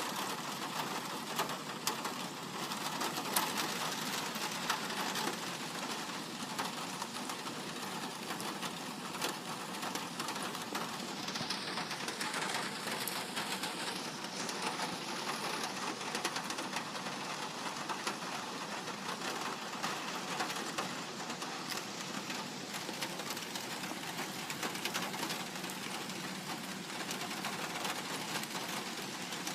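Light rain pattering on a metal roof: a steady, even hiss made of many fine, fast ticks of drops striking the metal.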